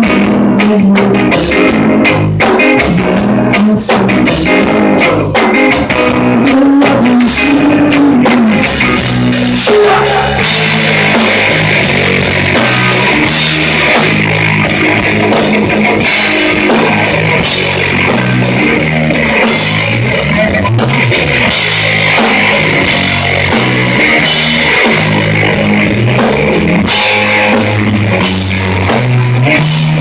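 Live rock band playing loud: electric guitar through an amplifier with a drum kit. For the first nine seconds or so the band plays sharp, stop-start hits; then it settles into continuous playing, with the cymbals ringing throughout and a moving low line underneath.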